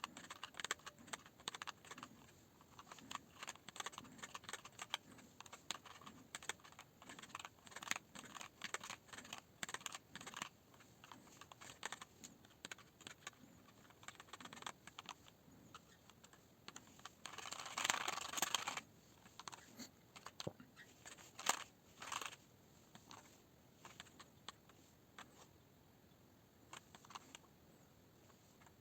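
Keys of a Qcyber Dominator TKL keyboard being typed on: irregular clicking keystrokes throughout, with a dense flurry of rapid keystrokes about eighteen seconds in.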